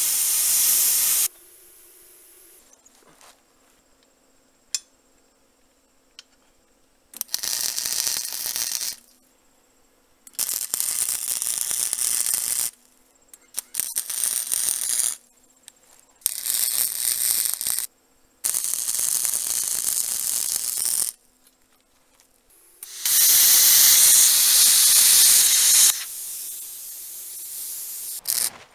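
Electric arc welder laying a series of short welding beads on steel: about seven runs of steady hiss, each one to three seconds long, with brief pauses between them.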